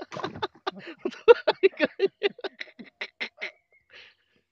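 A man laughing in a fast, even run of short bursts, about five a second, that stops about three and a half seconds in.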